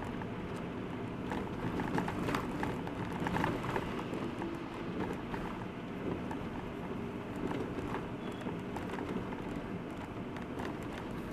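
Car engine and road noise heard from inside the cabin while driving in slow city traffic, with frequent small clicks and rattles.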